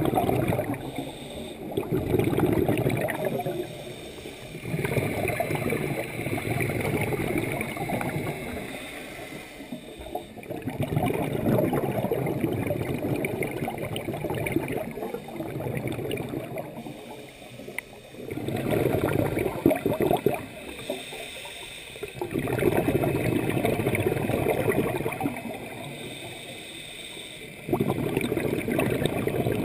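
Scuba diver breathing through a regulator underwater: recurring bursts of exhaled bubbles gurgling, each a few seconds long, with quieter inhalation gaps between.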